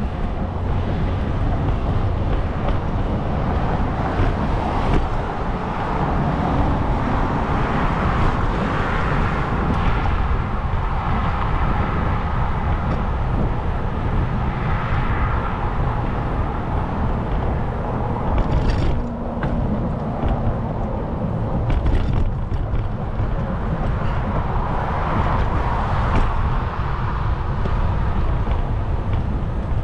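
Steady city street noise of traffic and road rumble, heavy in the low end, with a few sharp clicks about two-thirds of the way through.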